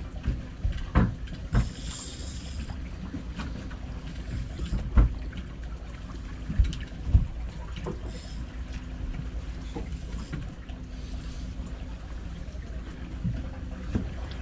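Sounds on board a small fishing boat: a steady low rumble with a faint hum, wind on the microphone, and scattered knocks and thuds on deck, the loudest about five and seven seconds in. Three short hissing bursts come at about two, eight and eleven seconds.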